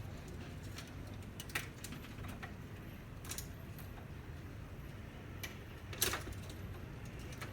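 Scattered light clicks and clinks of small printer parts and tools being handled during disassembly, a few at irregular intervals, the strongest about six seconds in, over a low steady hum.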